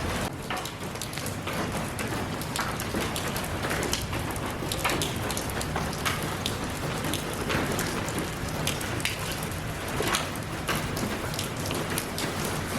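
Steady rain falling, with a dense hiss and many distinct drops striking a surface close by.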